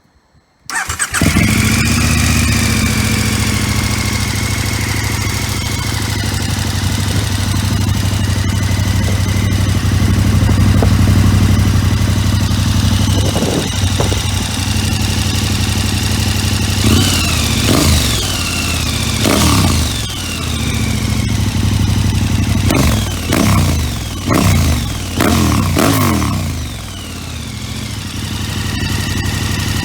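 KTM 1290 Super Adventure's V-twin engine through a Leo Vince One Evo exhaust with the baffle fitted: it starts about a second in and idles steadily, then is blipped through a string of quick revs past the middle before settling back to idle.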